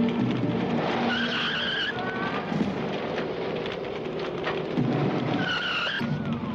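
VAZ-2103 (Lada) sedan's engine running hard under acceleration, with the tyres squealing twice: once about a second in, and again near the end.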